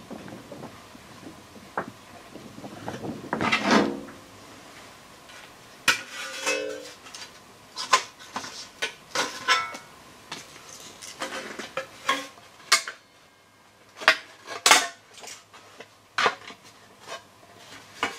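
Thin sheet-steel repair panel being handled and fitted against a wheel arch: a series of light metallic clanks, clicks and scrapes, with a short metallic ring about six and a half seconds in.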